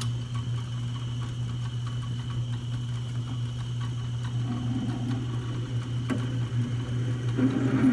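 1936 Atlas 12-inch metal lathe running with a steady motor-and-belt hum and a thin high whine, while a 5/8-inch drill bit in the tailstock bores into the metal part. The cutting noise swells from about halfway through and is loudest near the end.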